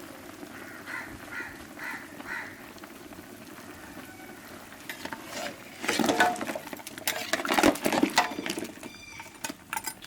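Beef trotter curry bubbling in a pot. About five seconds in, a ladle starts stirring and scraping in the pot, with repeated clanks and knocks that are loudest in the second half.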